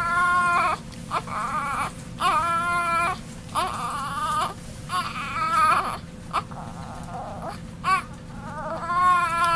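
Newborn baby crying in a string of short, high cries, about one every second with brief pauses between them.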